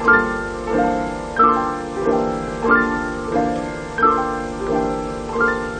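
Background piano music: gentle notes struck at an even pace, about one every two-thirds of a second, each fading before the next.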